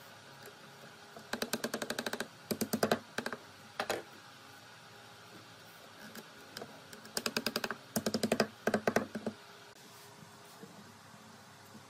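Runs of quick, light hammer taps on pine wood, about ten taps a second, in several bursts with pauses between.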